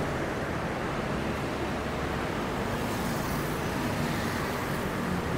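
Steady road traffic noise, vehicles running past, with a slight hissy swell about three seconds in.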